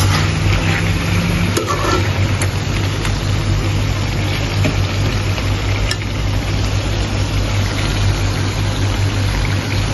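Chicken curry frying in a steel wok on a gas stove: steady sizzling over a low, steady hum, with a few light clicks of a slotted metal spatula against the pan.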